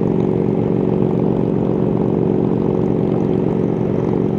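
1999 BMW R1100RT's boxer twin engine running steadily at highway cruising speed, an even drone that holds one pitch.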